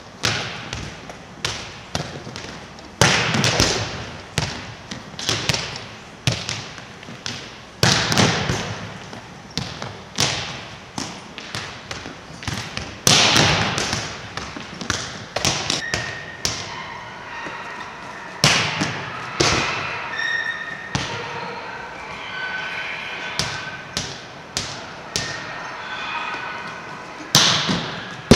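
Volleyballs being struck and bouncing on a hardwood gym floor: many sharp, irregular smacks and thuds, each ringing on in the echo of a large gymnasium.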